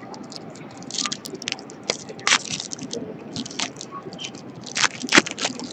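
Plastic and foil trading-card packaging crinkling and rustling as cards are handled, in a string of short crackly bursts with two louder crackles midway and near the end.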